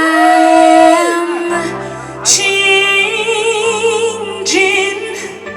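A woman sings a slow ballad with wavering vibrato on held notes. Low sustained accompaniment from a backing track comes in about one and a half seconds in.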